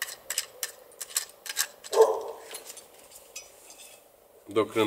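Metal rod pod being put together: quick clicks and clinks of its metal legs, bar and screw fittings as they are handled and screwed tight, with one louder knock about two seconds in.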